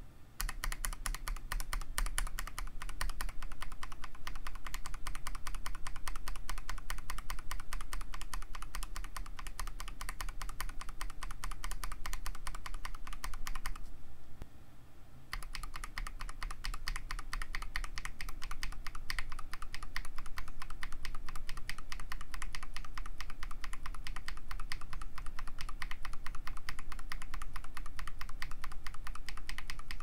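Fast typing on a mechanical keyboard fitted with linear switches: a rapid, dense run of keystroke clacks. It stops for about a second near the middle, then resumes on filmed Durock Teal linear switches.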